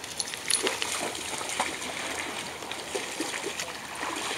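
Corgis and other dogs wading and splashing in shallow river water, a run of small irregular splashes over the steady wash of the water.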